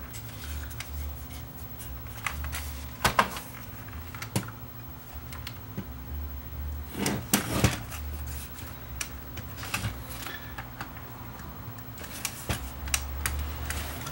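Clicks and knocks of plastic housing and circuit-board parts being handled as a stereo's cassette deck assembly is worked loose and lifted out. The loudest knocks come a little after 3 s and in a quick cluster about 7 s in. A low steady hum runs underneath.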